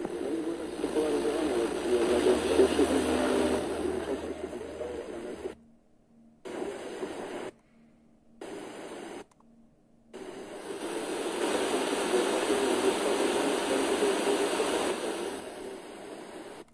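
Weak, distant FM radio station on a Sony DAV-560 receiver: hiss and static with faint programme audio under it. It drops out to near silence three times in the middle as the tuner steps to new frequencies, then comes back as hiss.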